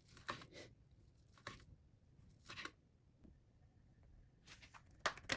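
Lettuce leaves being prepared by hand: a few faint, crisp tearing crunches about a second apart, then a quicker run of them near the end.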